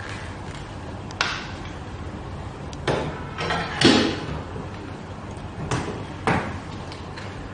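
Hard plastic knocks and clatter as the white plastic handpieces of an EMS body-sculpting machine are handled and hung on their holder brackets: about six separate knocks, the loudest a little under four seconds in.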